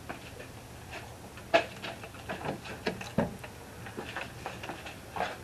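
Irregular small clicks and light knocks, with one sharp click about a second and a half in and a duller knock about three seconds in.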